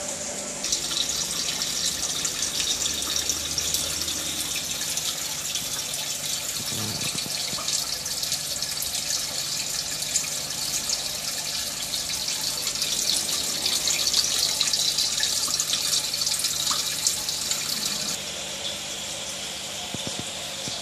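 Water splashing and trickling steadily in a turtle aquarium, with a dense patter of small drips. It grows louder about a second in and drops back near the end.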